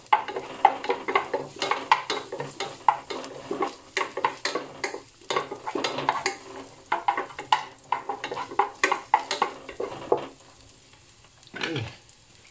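A utensil stirring and scraping garlic in hot olive oil in a pan, quick clicks against the metal over the sizzle of frying. The stirring stops about ten seconds in, followed by one brief low sound near the end.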